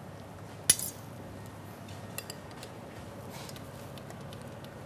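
Metal spatula and fork clinking against cookware: one sharp clink about a second in, then a couple of lighter taps a little after two seconds.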